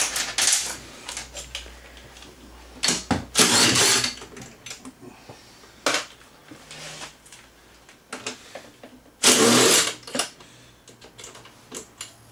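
Cordless screwdriver whirring in two short runs about six seconds apart, backing out the two screws that hold the generator's metal case, with small clicks and clinks of handling in between.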